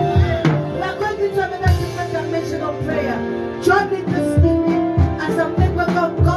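Praise and worship music: a band with a steady drum beat and held keyboard chords, with singing.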